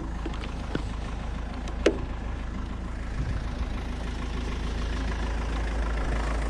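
A vehicle engine idling steadily as a low hum, with a sharp click at the start and another about two seconds in.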